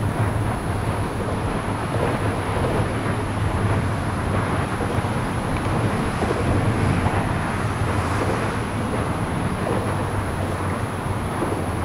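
Steady open-air background noise: a low rumble with hiss, and a faint high whine above it.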